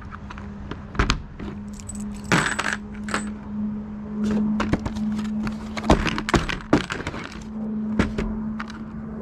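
Loose metal lawn-aerator spikes clinking and clattering against each other and on a tabletop as they are handled, a string of sharp separate clicks and jingles over a steady low hum.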